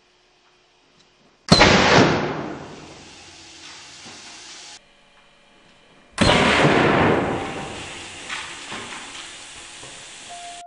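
Compressed-air cannon fired at low pressure (1 bar) with two eggs in the barrel: a sudden blast followed by a rushing hiss of escaping air that fades over a few seconds. This is heard twice, about a second and a half in and again about six seconds in.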